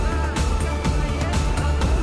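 Background music with a beat and strong bass.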